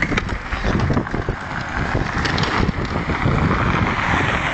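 Skateboard wheels rolling over rough pavement, with wind rumbling on the microphone and a few sharp clicks.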